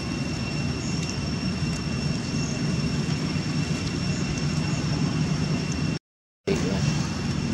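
Steady low rumbling background noise with a faint, steady high-pitched whine running through it; the sound cuts out completely for about half a second near the end.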